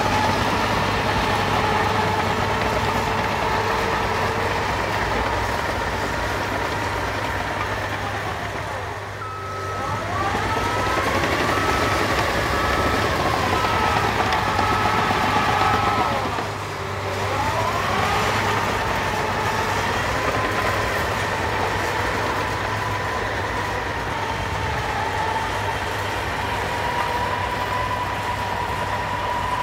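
Cat 953D track loader's diesel engine running hard while the machine works; the revs sag and pick back up twice, about nine and seventeen seconds in. Between the two dips its backup alarm beeps steadily, about once a second.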